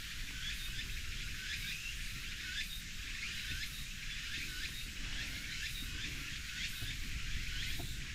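Outdoor park ambience: high chirping calls from wild creatures repeat about once or twice a second over a steady low rumble.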